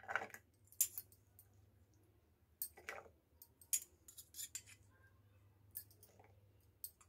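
Wet diced raw potato cubes scooped by hand out of a steel bowl of water and set down on a ceramic plate: faint, scattered soft clicks and taps, with light water sounds from the bowl.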